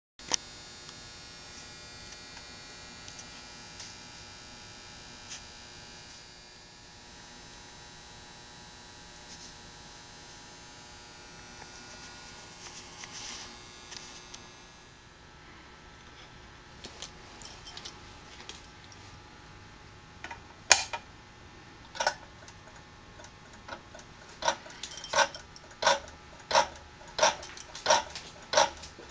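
Vintage Road Wag Mod 100 auto safety device running, its red reflector arm wagging side to side. A faint steady hum comes first, then scattered sharp clicks, then from about three-quarters of the way through a regular clicking about one and a half times a second as the arm swings.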